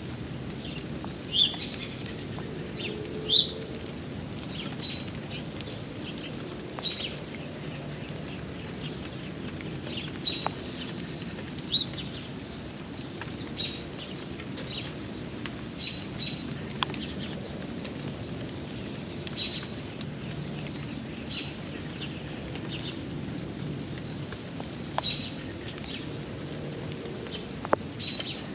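A bird giving short, sharp chirps, one every second or two, over a steady hiss of rain.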